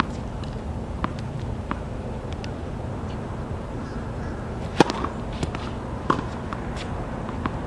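Tennis balls being struck by rackets: sharp pops at irregular intervals, the loudest about five seconds in, over a steady background rumble.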